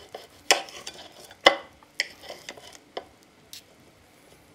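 Steel knife and fork cutting a sausage on a glass plate: several sharp, irregular clicks of metal against the glass, the loudest about a second and a half in.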